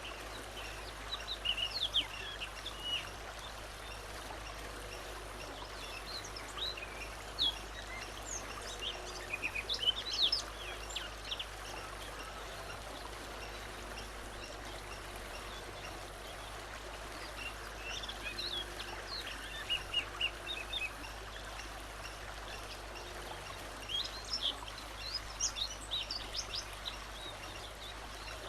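Bird song in short bursts of quick high chirps and whistles, in several phrases separated by pauses, over a steady background hiss like running water.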